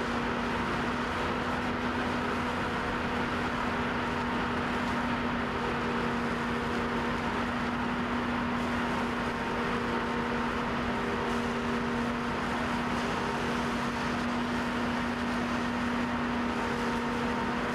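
A deck hose on a fishing vessel blasting a strong jet of water that hisses and splashes across the steel deck. Under it runs a steady machinery drone with a low hum.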